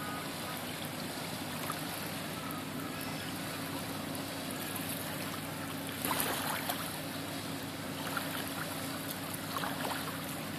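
Steady low hum of a moored river cruise ship's diesel engines running, under small waves lapping on a stony riverbank; the water splashes a little louder about six seconds in.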